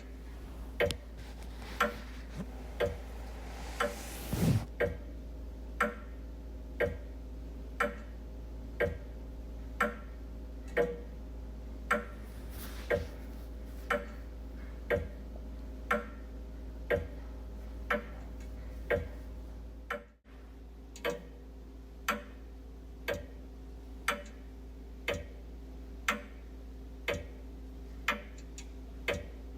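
Wall clock ticking steadily, about once a second, over a faint steady hum. A brief swishing noise comes through about four seconds in, and the sound cuts out for an instant about twenty seconds in.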